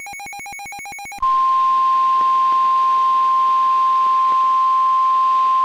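A rapidly pulsing electronic beep, about ten pulses a second, stops about a second in. A loud, steady single-pitch alarm tone replaces it: the NOAA Weather Radio 1050 Hz warning alarm tone, which announces a National Weather Service warning broadcast.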